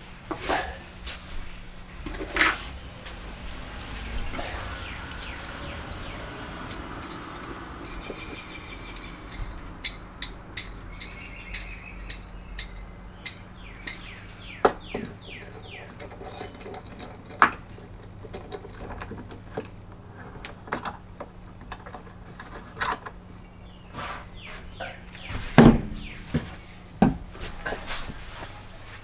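Scattered sharp clicks and knocks, the loudest a few seconds before the end, with birds chirping for a few seconds in the middle over a steady low hum.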